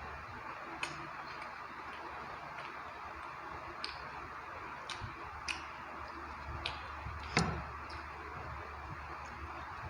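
Close-up eating sounds: scattered wet mouth clicks and smacks while chewing rice and chicken curry, over a steady hiss. The loudest smack comes about seven seconds in.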